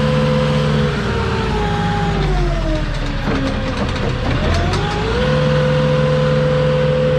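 Moffett truck-mounted forklift's engine held at high revs. Its pitch falls away toward idle about two seconds in and climbs back up to the same steady high speed around five seconds in.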